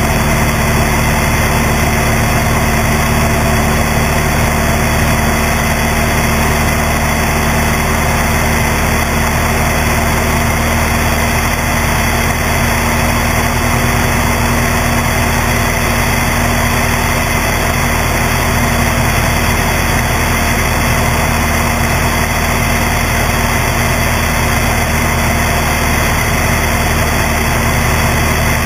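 Cessna 172's piston engine and propeller running steadily in level flight, heard from a wing-strut-mounted camera with rushing airflow noise over it.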